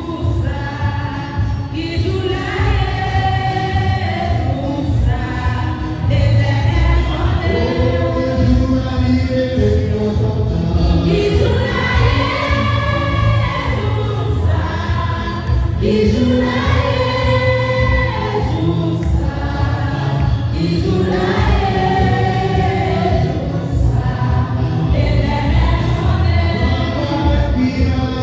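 A choir sings a church hymn in long, held notes.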